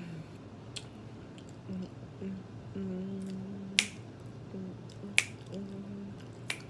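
Finger snaps, two of them sharp and loud about a second and a half apart with a few fainter ones, while a woman hums several held notes without words.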